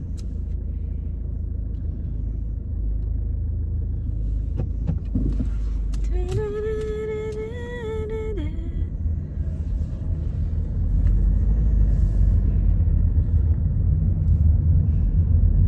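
Car-interior rumble of engine and road noise, growing louder about eleven seconds in as the car gets moving. About six seconds in, a single held pitched tone lasts a couple of seconds, lifting slightly in pitch just before it stops.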